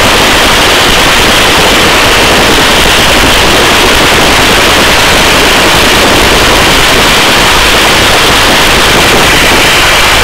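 Helicopter in a hover, its rotor and engine making a loud, steady rushing noise that is heard through the open cabin door.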